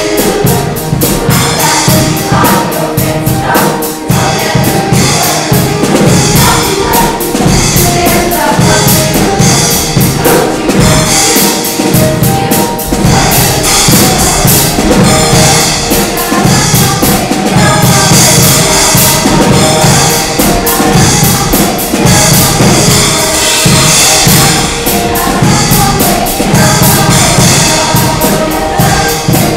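Show choir singing over accompaniment with a steady drum beat.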